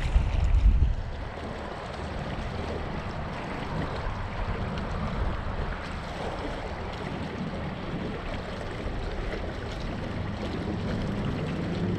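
Wind buffeting the microphone, with a strong gust in the first second, over the steady low hum of a passing boat motor that grows louder near the end.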